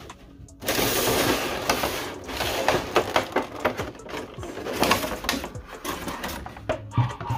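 Clear plastic blister packaging crinkling and crackling as it is handled and pulled off a statue. It begins with a sudden loud rustle just under a second in, then goes on as irregular crackles.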